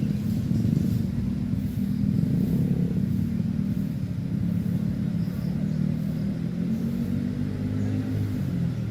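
Steady low drone of a running vehicle engine, its pitch shifting slightly.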